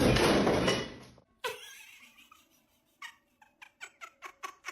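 A loud rushing noise for about the first second, then an animal's short pitched calls repeated faster and faster.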